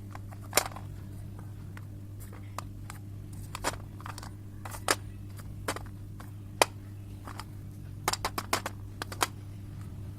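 Clay crunching and cracking in sharp, scattered snaps, with a quick run of them about eight seconds in.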